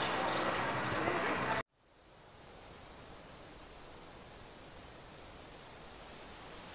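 Outdoor ambience with a high chirp repeating about twice a second, cut off abruptly about one and a half seconds in. A faint, steady rural hiss then fades in, with a few faint bird chirps.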